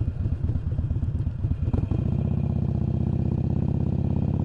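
Harley-Davidson Iron 883's air-cooled 883 cc V-twin engine running on the road: uneven and pulsing at low revs for about two seconds, then a steadier drone rising slowly in pitch as the bike pulls away.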